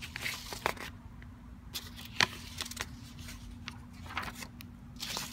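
Light footsteps and camera handling noise: scattered soft clicks and rustles with one sharper click about two seconds in, over a faint steady hum.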